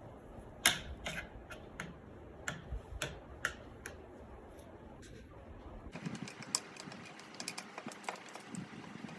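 Irregular sharp clicks and taps of small hard parts being handled, as a sanding machine is worked on to change its carbon brushes. The loudest click comes just under a second in, and denser, lighter clicking and rustling follows in the second half. No motor is running.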